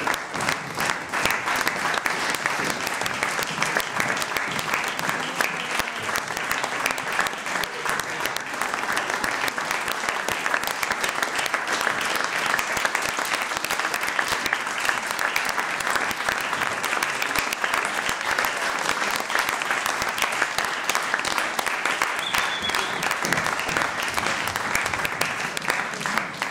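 Theatre audience applauding: steady, dense clapping that fades out at the very end.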